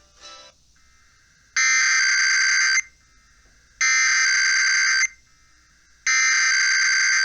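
Emergency Alert System SAME header: three bursts of rapid data tones, each a little over a second long with about a second between them, opening a required weekly test. The tail of a music bed ends just before the first burst.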